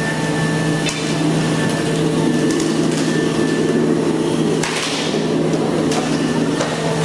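Brokk 160 demolition robot running with a steady hum from its power pack while its hydraulic breaker hammers at mill liner plates. A dense rattle of rapid blows runs through the first half, and a sharp knock comes about five seconds in.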